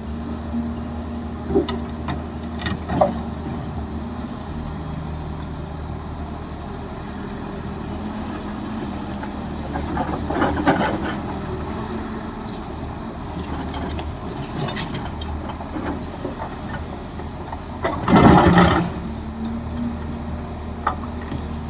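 Diesel engine of heavy construction machinery running steadily, with short noisy bursts, the loudest about eighteen seconds in.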